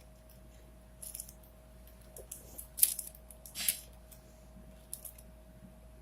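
Scattered plastic clicks and short rattling scrapes of a 4x4x4 Rubik's cube (Rubik's Revenge) being handled and its layers turned, the loudest two near the middle.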